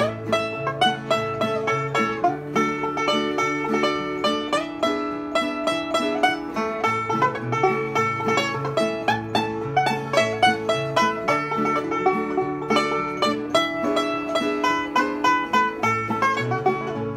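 Bluegrass music: fast banjo picking over alternating low bass notes.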